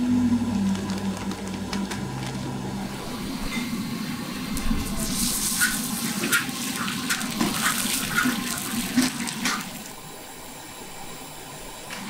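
Blocks of solid white fat sizzling in a hot, smoking wok, a dense hiss with many sharp spitting pops for several seconds, fading to a quieter hiss about ten seconds in.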